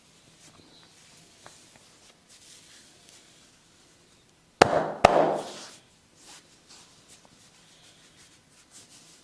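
A barber's hands rubbing softly over skin and hair, then two loud, sharp hand strikes about half a second apart, typical of the slaps and claps of a barber's massage.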